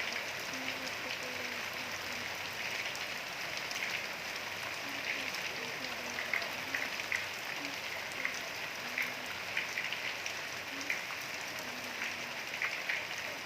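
Steady rain, with many sharp drops tapping on a hard surface.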